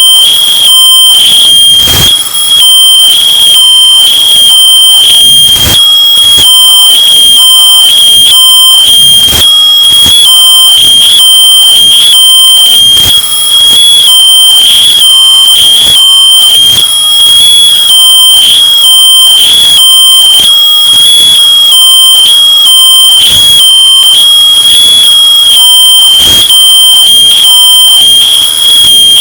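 Smoke detector alarm sounding a steady high-pitched tone. It is bass-boosted and overdriven until it is harshly distorted and clipping at full loudness.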